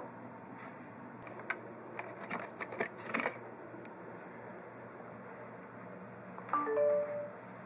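Wire door of a plastic pet carrier clicking and rattling as its latch is worked and the door swung open, a quick run of sharp metallic clicks. Near the end there is a louder, brief squeaky sound.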